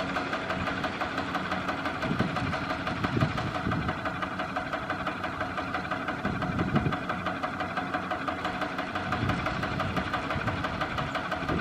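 Kubota single-cylinder diesel engine of a two-wheel walking tractor running steadily, with an even chugging beat.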